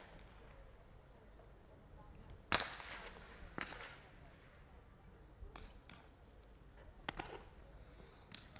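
Baseballs popping into leather gloves: a sharp pop about two and a half seconds in, the loudest, then another about a second later, followed by a few fainter pops and cracks.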